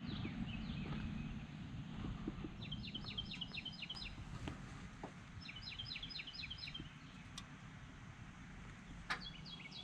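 A songbird singing three times: each phrase a quick string of about seven repeated, downward-sliding notes lasting just over a second, over a steady low outdoor rumble.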